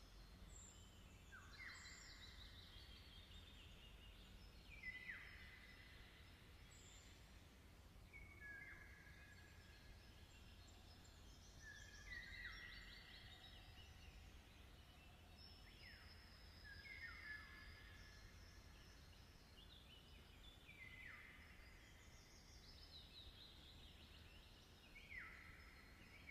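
Faint songbirds singing: several birds repeating short song phrases that fall in pitch, one every second or two and sometimes overlapping, over a low steady rumble.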